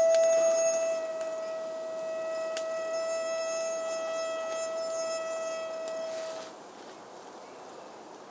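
Camp kettle boiling over a campfire, whistling steadily as steam jets out of it. The whistle cuts off suddenly about six and a half seconds in, as the kettle is taken off the fire, leaving faint fire crackle.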